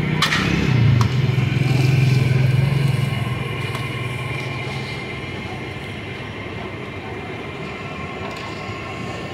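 Pakoras deep-frying in a large iron karahi of hot oil, a steady sizzle, with two short metal clinks from the skimmer within the first second. A motor vehicle's engine hums nearby, loudest over the first three seconds and then fading.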